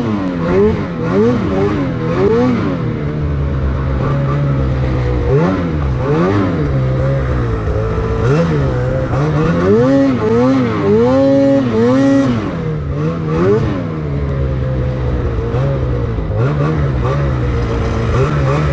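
Two-stroke 850 E-TEC engine of a Lynx Boondocker snowmobile running hard as the sled is ridden through deep snow. Its pitch rises and falls over and over as the throttle is worked.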